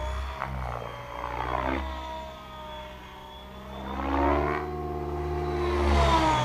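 Electric Mikado Logo 690 SX RC helicopter in flight, its main rotor spinning at a 2050 rpm headspeed. The rotor hum and the whine of its Scorpion motor slide down and up in pitch as it passes, growing louder about four seconds in and again near the end.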